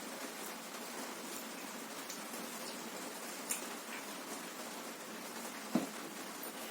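Steady hiss of heavy rain, with a few faint clicks and one sharper tap a little before the end.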